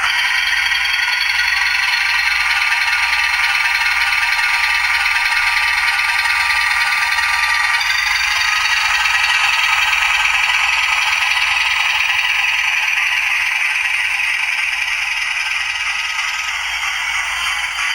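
Sound decoder in a model diesel locomotive playing its engine sound through a tiny onboard speaker: a steady, rattling mechanical sound with no bass, shifting slightly about halfway through.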